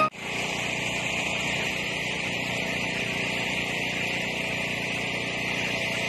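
A steady engine drone with a hiss over it, unchanging in level and pitch.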